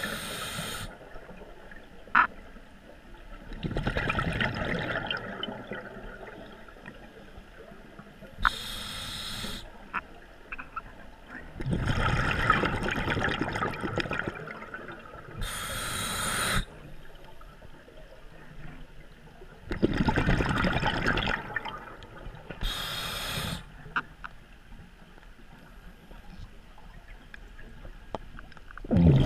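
Scuba diver breathing through a regulator: a short hissing inhale, then a few seconds later a longer, louder rush of exhaled bubbles, repeating about every seven seconds for four breaths.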